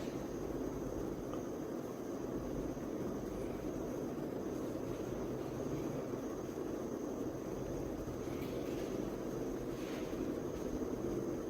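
Steady low hum and hiss of room noise, with two faint, brief soft noises near the end.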